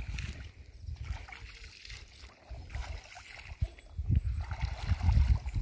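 Feet splashing and sloshing as a person wades in shallow lake water, under gusty wind rumbling on the microphone that grows stronger from about four seconds in.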